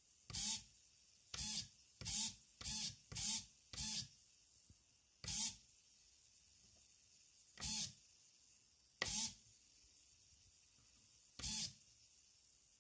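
Small geared motor of a retractable landing gear, a motor-gearbox unit taken from a linear servo, whirring in short bursts of about a third of a second as the gear is driven up and down. There are about ten runs: a quick cluster in the first four seconds, then a few more spread out.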